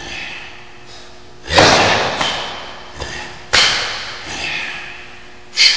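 Three sharp hand slaps about two seconds apart, with a fainter one just before the second. Each rings out and fades over about a second in a large, echoing gym hall.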